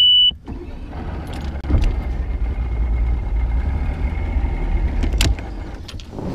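A short high electronic beep from the bass boat's ignition as the key is turned, then the big outboard motor starts about a second in and runs with a steady low rumble for about four seconds before shutting off.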